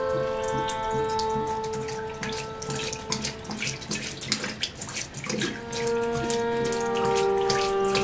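Liquor glugging and splashing as it is poured from a glass bottle into a sink, under sustained music notes that thin out midway and swell again near the end.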